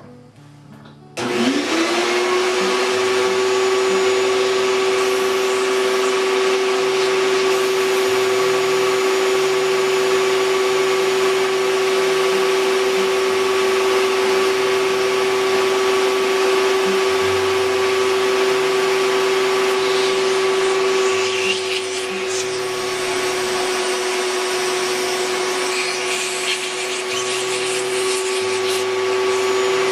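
Shop vac motor switching on about a second in, rising quickly to a steady high whine over a rush of air, supplying air to a homemade radial pneumatic engine. The sound drops a little about two-thirds of the way through.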